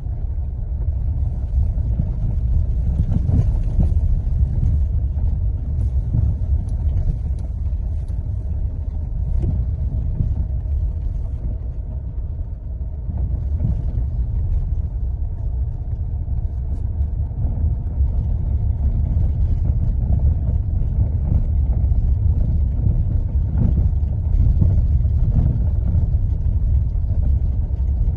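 Mahindra XUV700 driven over rough off-road ground: a steady low hum and rumble with light vibration. This is the humming noise owners report from the suspension when off-roading.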